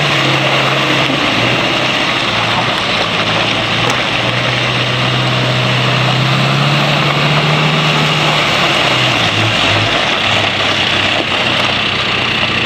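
John Deere 310SK backhoe loader's four-cylinder diesel engine running steadily, its note shifting slightly about a second in and again around nine seconds in.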